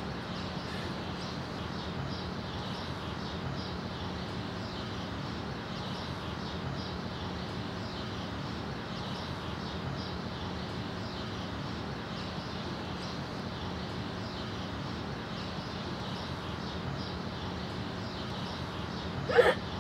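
Steady background hiss with a faint low hum. A person's voice breaks in briefly near the end.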